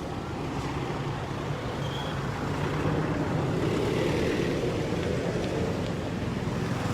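A motor vehicle's engine running steadily, growing a little louder partway through, with faint muffled voices underneath.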